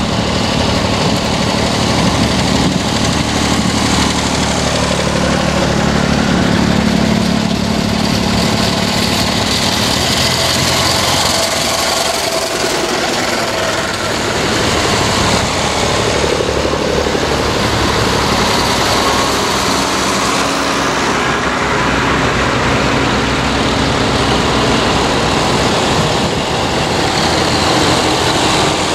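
Vintage tractor engines running as a procession of tractors drives past one after another, a steady mechanical drone with no gaps.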